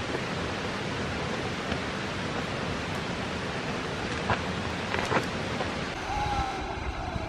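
Steady rushing of a canyon waterfall and creek, an even hiss without rhythm, with a few light knocks about four and five seconds in.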